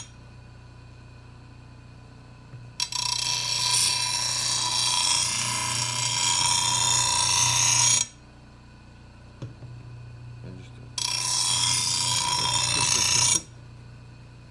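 Steel lawnmower blade ground against a grinder's stone wheel in two light passes, a long one of about five seconds and a shorter one of about two and a half, each a harsh hiss. Between passes the grinder motor hums steadily with the wheel spinning free.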